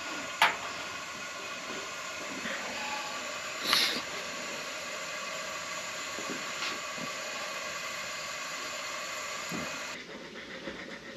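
Vevor two-burner outdoor gas stove's lit burners hissing steadily, with a sharp click about half a second in and a brief louder hiss about four seconds in. The sound drops lower near the end.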